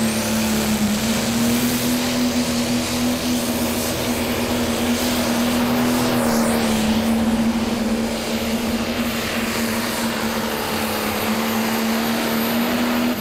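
Diesel pulling tractor engine running flat out under load as it drags the weight sled, a loud steady drone held at one high pitch, sagging slightly about two-thirds of the way through.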